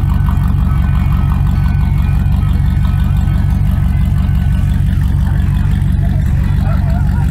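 C4 Chevrolet Corvette's V8 running at low revs with a steady low engine note as the car creeps slowly away.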